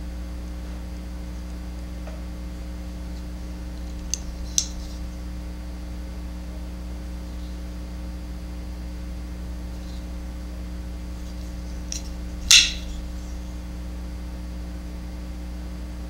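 Steady low hum with faint handling clicks from a Buck Vantage Avid liner-lock folding knife being turned and closed in the hand, then one sharper click about twelve and a half seconds in as the blade is opened and locks.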